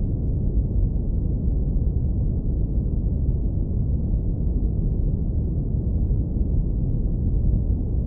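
Deep brown noise filtered down to the low bass, a steady, even rumble with nothing above a low hum range.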